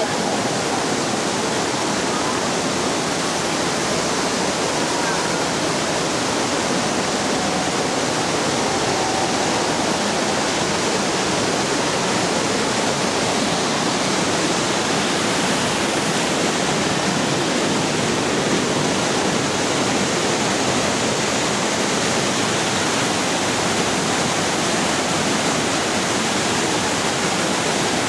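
Ditumabo Falls, the waterfall known as Mother Falls, pouring: a loud, steady rush of falling water.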